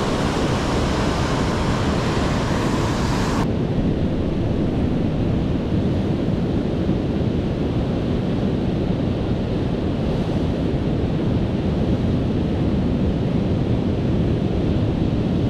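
Steady rush of surf from a rough sea, mixed with wind buffeting the microphone. About three and a half seconds in the higher part of the sound drops away sharply, leaving a muffled low rumble.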